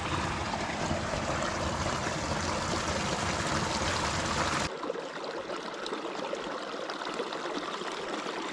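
Small spring-fed creek flowing, a steady rush and trickle of water. About halfway through the sound changes abruptly, its low rumble dropping away to leave a lighter trickle.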